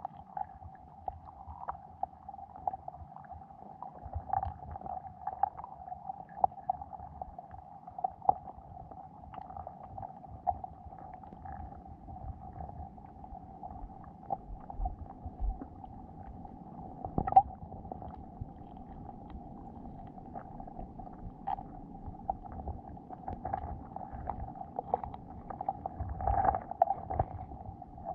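Underwater sound on a lake bed, heard through a camera's waterproof housing: a steady muffled hum with many small irregular clicks, a sharper knock about 17 seconds in and a louder rumble near the end.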